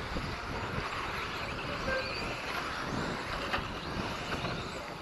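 Radio-controlled model trucks racing around a track, faint beneath steady wind rumble on the microphone.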